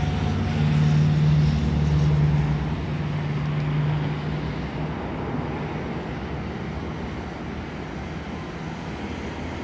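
Steady low engine hum of a nearby road vehicle, loudest in the first couple of seconds and fading out by about halfway, over a constant outdoor traffic rumble. The jet engines of an Airbus A330 airliner on final approach blend faintly into the background.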